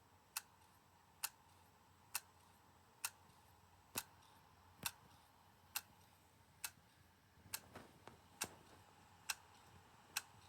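Dead 2.5-inch laptop hard drive from a late 2006 MacBook Pro clicking about once a second in an even rhythm: the repeated click of a failed drive.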